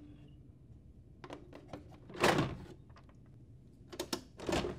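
Plastic clicks and clunks from a Lexmark laser printer as its front door is opened and the imaging unit is pulled out. There are a few light clicks, a louder clunk about two seconds in, and another clunk near the end.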